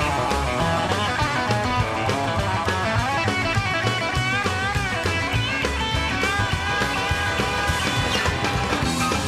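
Rock background music with guitar over a steady beat.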